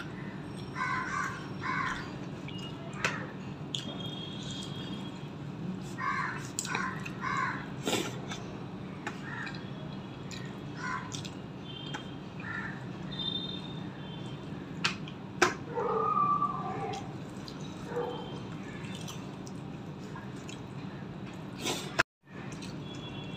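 Close-up eating sounds of rice and curry eaten by hand: fingers mixing rice and tapping on a steel plate, and chewing, heard as scattered small clicks. Crows caw in the background in short runs of three or four calls. The sound cuts out for a moment near the end.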